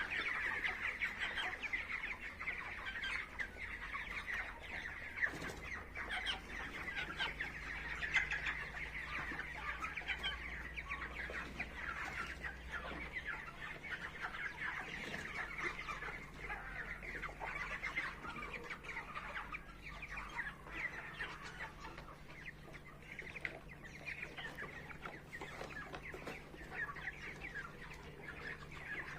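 A flock of chickens clucking continuously, many birds chattering at once, over a faint steady low hum.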